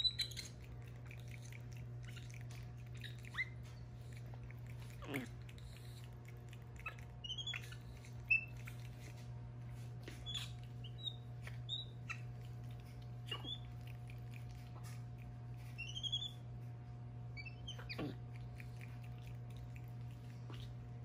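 Capuchin monkeys giving short, high chirps and squeaks scattered throughout, some in quick runs, with a few longer whistles falling sharply in pitch. A steady low hum runs underneath.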